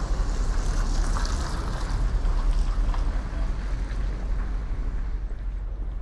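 City ambience recording of Reykjavik: a steady low rumble under a hazy wash of street and harbour-like noise, easing off slightly toward the end.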